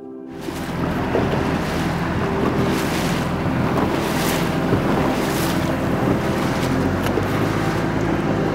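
Wind buffeting the microphone over open water, with the wash of water around a small sailboat. It cuts in suddenly just after the start and keeps surging in gusts.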